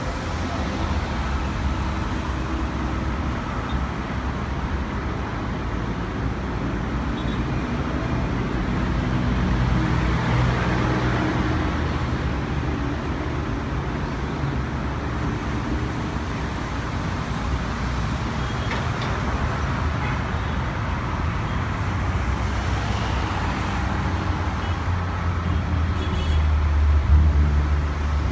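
Steady airport apron noise: a low rumble with a hiss of engines and ground traffic, swelling about ten seconds in and again near the end, with the rumble growing heavier at the close.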